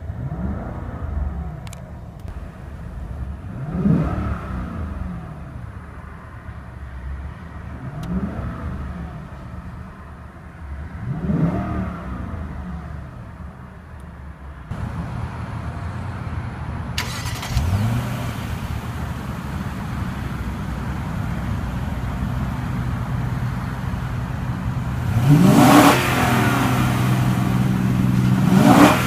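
2014 Lexus LS 460 F Sport's 4.6-litre V8 revved in Park, each blip rising and falling back to idle. Four blips are heard from inside the cabin. Then, from behind at the exhaust tips, it is louder, with a bigger rev near the end.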